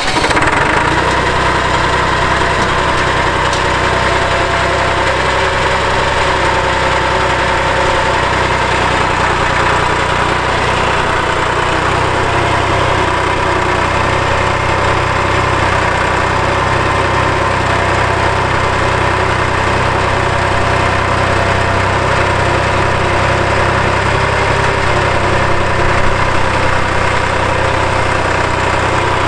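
Massey Ferguson 232 tractor's diesel engine, just started, running steadily at idle while the front loader is raised and lowered; from about midway its low running note takes on an even pulse.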